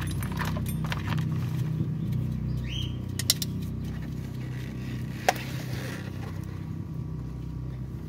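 Steady low mechanical hum, like an engine running, under a few sharp metallic clicks as the oil-pan bolts are handled and fitted, with one short rising chirp about three seconds in.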